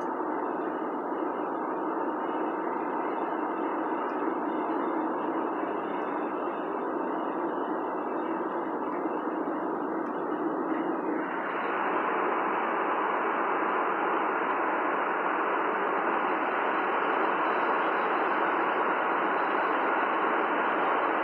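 Steady road and tyre noise of a car driving along a highway, heard from inside the car. About eleven seconds in, the noise grows a little louder and brighter.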